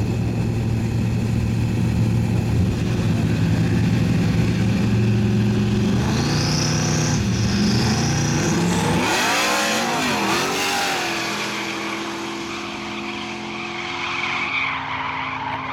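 A twin-turbo Ford Mustang and a nitrous-fed Pontiac Trans Am drag car idle loudly side by side on the start line, with a high whine rising about six seconds in. At about nine seconds both launch hard, engines revving up and down through the gears, then the sound fades as they run away down the strip.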